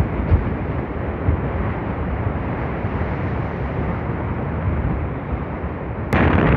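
Strong wind rumbling and buffeting steadily, with a sudden louder gust near the end.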